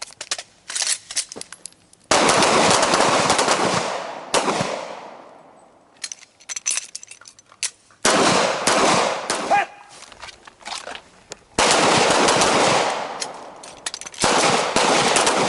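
A line of handguns firing rapid, overlapping strings of shots, in several long volleys of a second or two each, with scattered single shots in the gaps between.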